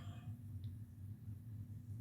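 Faint steady low hum, room tone with no other sound, and a tiny click about half a second in.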